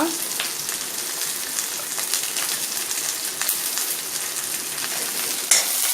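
Chopped vegetables sizzling and crackling in hot oil in a kadai as they sauté, a steady hiss with scattered pops and a louder crackle near the end.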